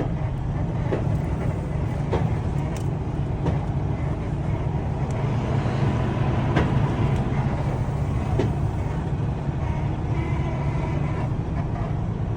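Vehicle engine running steadily with a low hum, a few faint clicks and knocks over it.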